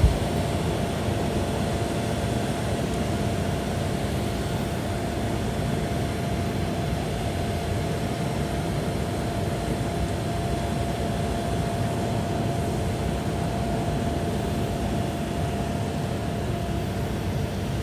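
Steady machinery drone with a constant high hum over a wash of noise, unchanging throughout.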